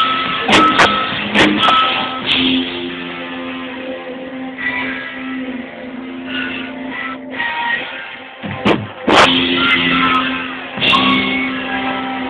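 Live band music: electric guitar and bass over drums. The drum hits drop away for a quieter, sparser passage of a few seconds, then come back in loudly about two-thirds of the way through.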